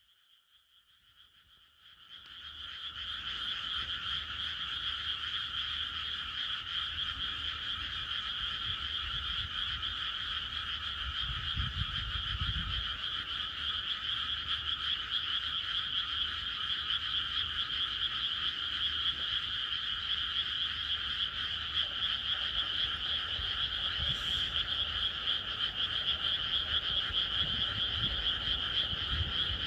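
Dense chorus of many frogs croaking together at night. It fades in over the first two seconds and then continues steadily.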